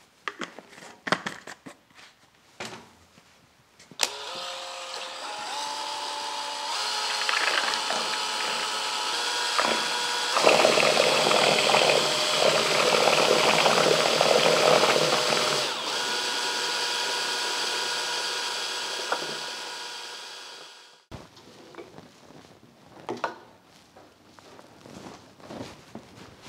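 Electric drill spinning a mixing paddle in a steel bucket, stirring a milky batch of water-mixed machine coolant. The motor starts about 4 seconds in, its pitch stepping up and down with the trigger, and runs loudest in the middle. It stops abruptly about 21 seconds in, with a few knocks before and after.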